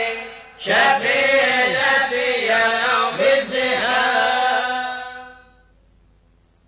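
Arabic devotional chant praising the Prophet Muhammad: voices singing a drawn-out melodic line. There is a brief break about half a second in, then the chant fades out a little after five seconds in.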